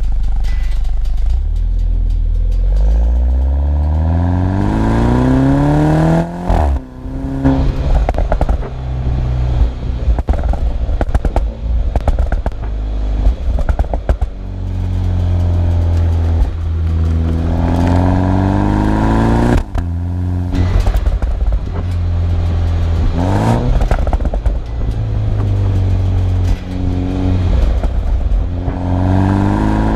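BMW 125i's B48 turbocharged four-cylinder through a stock M140i cat-back exhaust, pulling hard through the gears: the engine note climbs, drops sharply at each upshift three times, and climbs again near the end. Short pops and crackles from the exhaust are scattered between the pulls.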